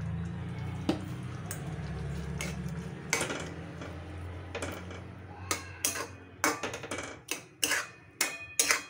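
A spatula stirring drumsticks in coconut milk in a metal pan, over a low steady hum. About halfway through, the spatula starts striking and scraping the pan in a quick run of clinks, a few a second.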